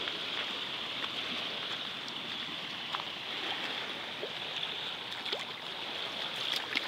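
Shallow sea water lapping and washing over a pebbly shore: a steady rushing hiss with faint scattered clicks.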